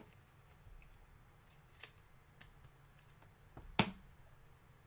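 Trading cards being handled: soft rustles and light ticks, with one sharp click near the end.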